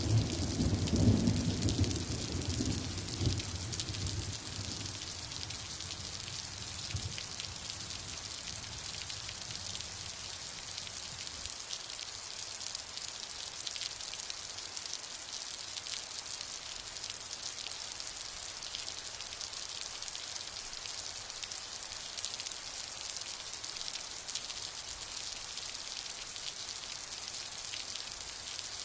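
Steady rain falling, a dense even patter of drops. A low rumble of thunder dies away over the first few seconds.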